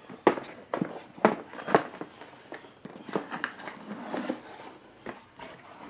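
Black cardboard inner box of a motherboard being handled by hand: a few sharp knocks and taps of the cardboard in the first two seconds, then softer scraping and rustling.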